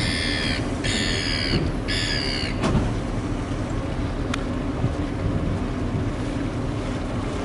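Tour boat's engine running with a steady low rumble under wind and water noise. In the first two and a half seconds a high, clear note sounds three times, about a second apart, and a sharp knock follows just after.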